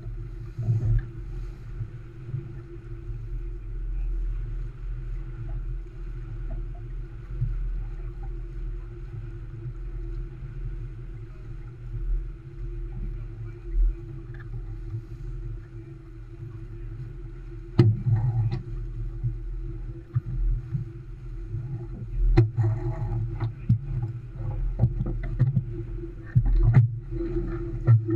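An Olson 25 sailboat moving through choppy water under sail, giving a steady muffled rumble of water along the hull and wind, heard through the boat-mounted camera. Scattered clicks and knocks from the boat and rigging come through, the sharpest a little under two-thirds of the way in.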